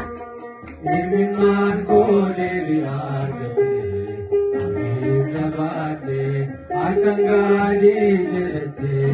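Men chanting a slow Ethiopian Orthodox hymn, with long held notes. The chant runs in two phrases, with a brief break about six and a half seconds in.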